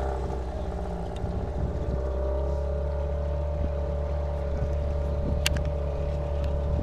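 Outboard motor of an inflatable boat running steadily at constant speed, with water rushing past the hull. There is one sharp click about five seconds in.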